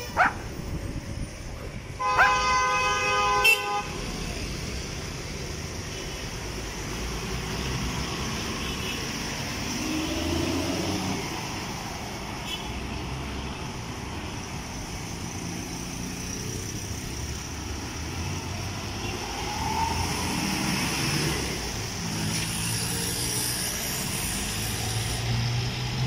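A vehicle horn honks once, a steady note lasting about a second and a half, about two seconds in. Then steady vehicle engine and traffic noise.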